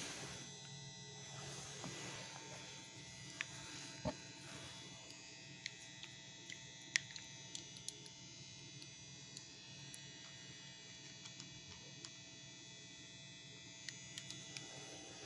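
Low steady electrical hum and buzz, with scattered sharp clicks and taps from a phone being handled close to the microphone.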